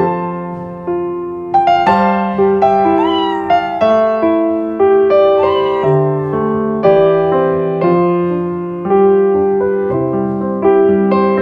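Gentle piano music, with a small kitten mewing twice over it, about three seconds in and again about five and a half seconds in.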